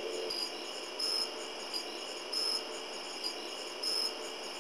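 Insects chirping steadily, with a louder high chirp about every one and a half seconds.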